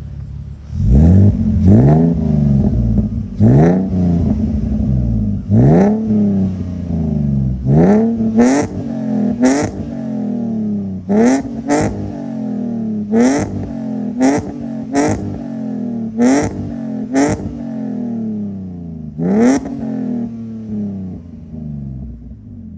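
BMW E46's exhaust, with catless headers, a Y-pipe into a single 4-inch Greddy muffler, a Vibrant Ultra Quiet resonator and the stock main resonator, as the engine is revved over and over: more than a dozen quick revs, each rising sharply and dropping back. The owner finds this setup too quiet, with no rasp.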